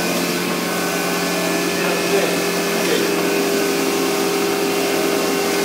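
EFI VUTEk PressVu UV 320 wide-format printer running: a steady hum with several constant whining tones.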